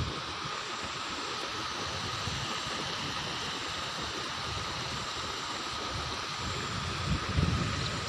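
Steady rush of a small waterfall at low water, a thin stream pouring over a rock lip into the gorge. Near the end, gusts of wind buffet the microphone with a low rumble.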